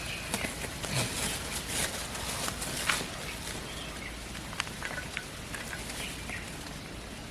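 Outdoor ambience: a steady hiss with scattered sharp clicks, mostly in the first few seconds, and a few brief high bird chirps.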